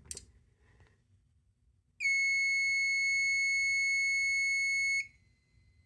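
Wheelock MT and System Sensor MASS fire alarm horns sounding their high tone: one steady electronic tone that starts about two seconds in, holds for about three seconds and cuts off suddenly.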